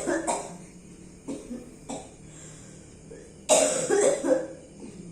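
A person coughing: a cough fades out at the start, and a loud fit of two or three quick coughs comes about three and a half seconds in, with a couple of short, quieter sounds between them.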